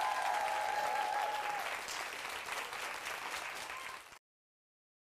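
Audience applauding, with voices cheering over the clapping in the first second or two. The applause cuts off abruptly about four seconds in.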